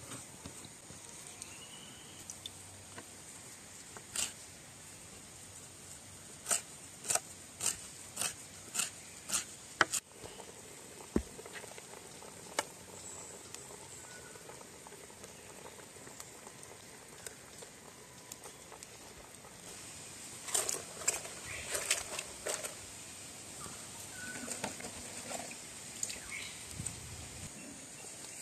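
Cooking utensils tapping and clinking: a run of sharp taps about two a second, then later a short cluster of clatter, over a faint steady hiss.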